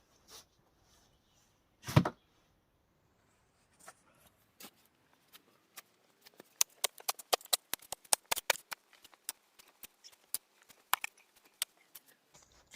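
Digging a pit with a shovel: one heavy thud about two seconds in, then from the middle on a fast, irregular run of sharp clicks and knocks of the blade and soil.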